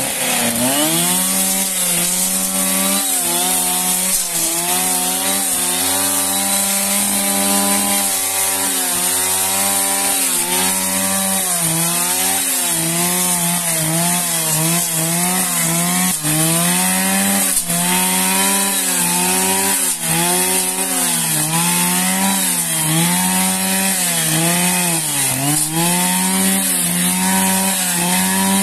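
Petrol brush cutter running at high revs while cutting grass. Its engine note dips and recovers every second or two as the cutting head loads up in the grass, over a steady high hiss.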